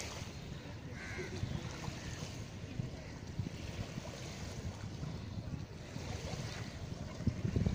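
Wind buffeting the microphone over small waves washing onto a sandy shore, a steady rushing with an uneven low rumble.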